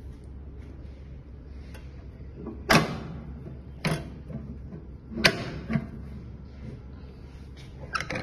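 The stainless-steel front door of a hard ice cream batch freezer's freezing cylinder being swung shut and latched: several sharp metal clunks and knocks over a steady low hum, the loudest about three seconds in and at the very end.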